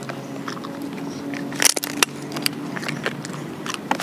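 A dog chewing and mouthing a toy, giving scattered crackly clicks, with two sharper clicks about halfway through. A steady low tone runs underneath.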